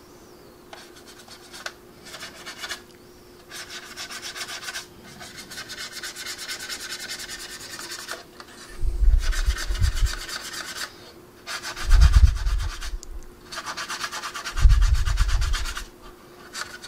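Stiff paintbrush bristles scrubbing over the painted plastic surface of a scale model aircraft in spells of quick back-and-forth strokes, blending oil-paint weathering into the panel lines. The three loudest spells, later on, come with dull low thumps from the model being handled.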